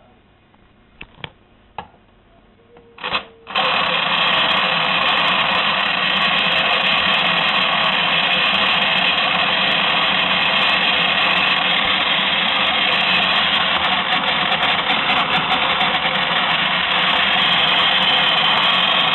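A few clicks, then about three and a half seconds in, a toy twin-tub washing machine's small electric motor starts and runs with a loud, steady whirring rattle. The owner says the motor is rusty and turns the agitator and spinner slower than it should.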